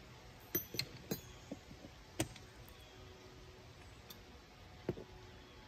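A 22 mm socket and ratchet being handled: a handful of light, sharp metallic clicks, most of them in the first two seconds and one more near the end.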